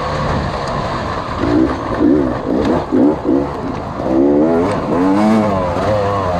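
Off-road dirt bike engine revving up and down with the throttle. There is a run of quick rises and falls in pitch about a second and a half in, then a longer rise and fall near the end.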